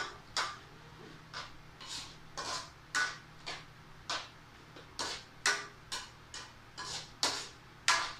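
Repeated sharp taps of a kitchen utensil on a hard surface, roughly two a second at an uneven pace.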